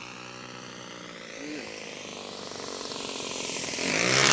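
Saito 14 cc four-stroke engine of an RC SE.5A biplane model droning in flight, then growing much louder and higher over the last second or so as the plane comes in low toward the microphone.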